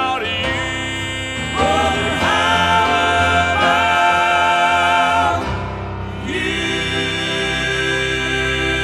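Male southern gospel quartet singing the close of a song in close four-part harmony, holding sustained chords with vibrato. About six seconds in the music settles onto a long, steady held chord.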